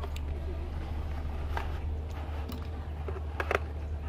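Plastic case of a portable radio being handled and turned over, giving scattered clicks and knocks, with a cluster of sharper clicks about three and a half seconds in. A steady low hum runs underneath.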